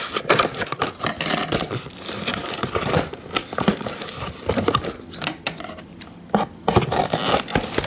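Toy packaging being cut open with scissors: irregular crinkling, snipping and tearing noises as the package is worked at.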